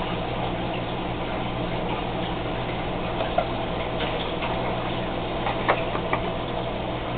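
Small aquarium air pump humming steadily, with a few scattered soft ticks over it.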